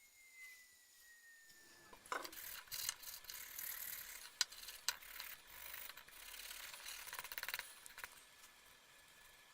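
Hand-tool work on a metal throttle body: about two seconds in, rapid scraping and clicking with a few sharp clicks starts, and it stops a couple of seconds before the end.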